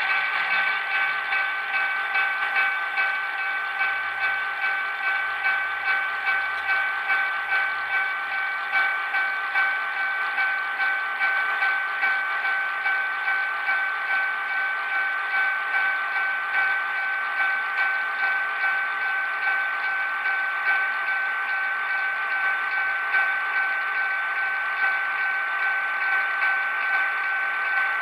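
HO-scale diesel switcher's DCC sound decoder playing its diesel engine sound through the locomotive's small built-in speaker, as it runs at low speed. The engine sound throbs at about one and a half beats a second, then evens out over the last several seconds.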